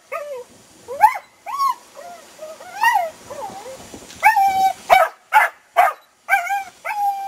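A dog barking over and over in many short, high-pitched barks, with some whining rise-and-fall notes between them.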